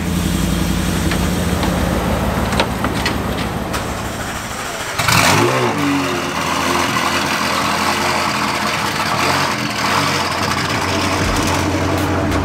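Car engine idling. About five seconds in, an engine starts with a quick rev that rises and falls in pitch, then settles into a steady idle.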